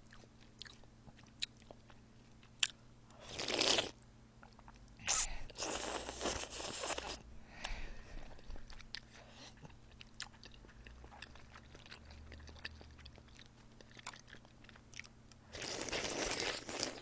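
Close-miked eating of udon in broth: noodles and broth slurped off a spoon, with a short slurp a few seconds in, a longer one around six seconds and another near the end. Between them come soft chewing and small clicks of the spoon and chopsticks.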